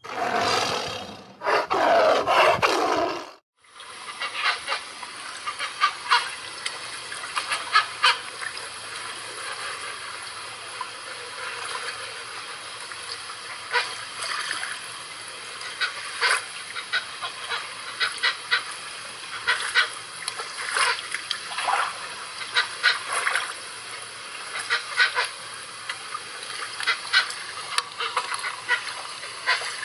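Animal calls: a loud dense run of calls for about the first three seconds, a brief break, then many short sharp calls over a steady hiss.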